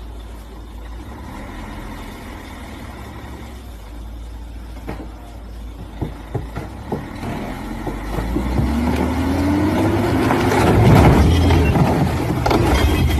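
Truck engine running steadily, with a few short knocks about five to seven seconds in. It then revs up with a rising pitch and grows loud.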